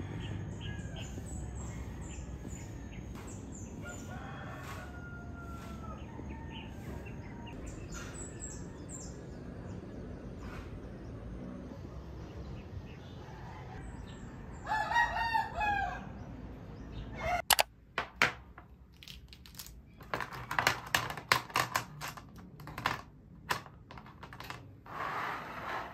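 Outdoor ambience with small birds chirping and a rooster crowing once, a long call about fifteen seconds in. Then, indoors, a run of sharp clicks, taps and light knocks as small objects such as pens and a tray are moved and set down on a desk.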